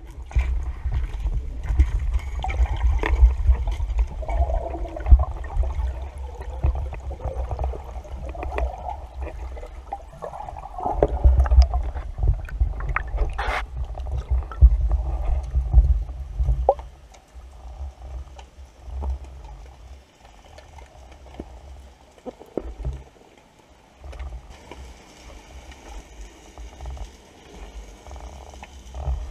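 Underwater sound through a camera housing on a speargun: a low rumble of moving water with knocks and scattered sharp clicks as the gun is handled, quietening after about seventeen seconds.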